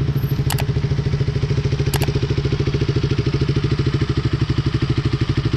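Motorcycle engine idling steadily with a rapid, even pulse, with two faint clicks in the first two seconds.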